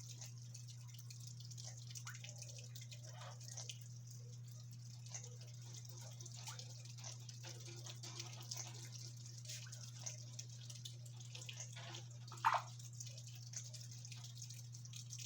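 Parrots making scattered small clicks and ticks over a steady low hum, with one short louder call about twelve seconds in.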